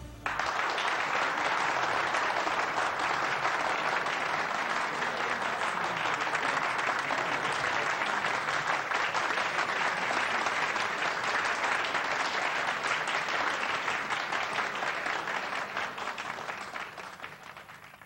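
Audience applause, a steady dense clapping that begins abruptly as the music stops and fades away near the end.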